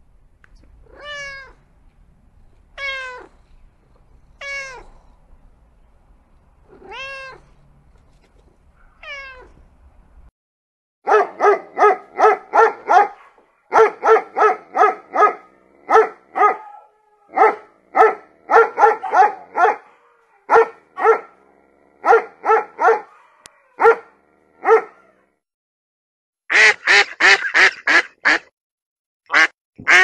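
A ginger-and-white kitten meows five times, each call rising and falling in pitch. Then a dog barks in quick runs of several barks at a time. Near the end a duck quacks in a fast run.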